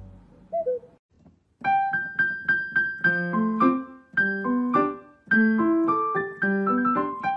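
Piano music: a tune of short struck notes that starts about a second and a half in and plays on without a break.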